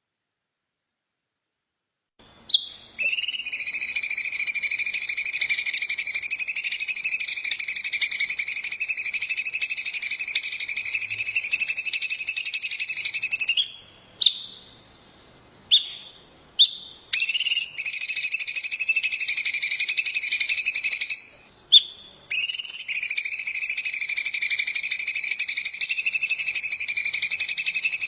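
A songbird singing long, even trills, three sustained bouts with a few short single notes between them, each bout cutting off suddenly.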